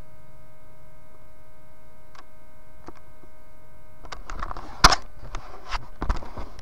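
Handheld camera being handled: rustling with a run of sharp clicks and knocks from about four seconds in, the loudest click about five seconds in, over a steady thin electrical whine of several tones.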